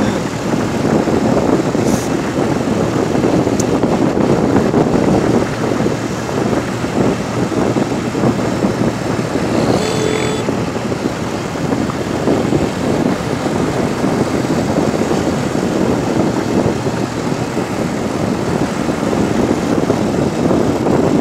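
Strong wind rushing and buffeting over the microphone of a moving vehicle, with its engine running underneath. A brief higher tone sounds about halfway through.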